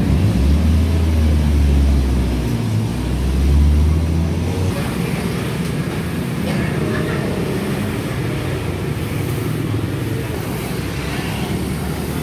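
Road traffic noise, with a deep engine rumble for about the first four and a half seconds that then gives way to a steadier general hum.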